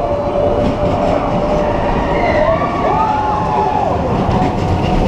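Expedition Everest roller coaster train running along its track in the dark, a steady rumble with a held high tone that gives way about halfway through to rising and falling wails.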